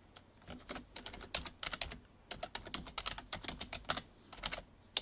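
Typing on a computer keyboard: an irregular run of quick key clicks with brief pauses between bursts.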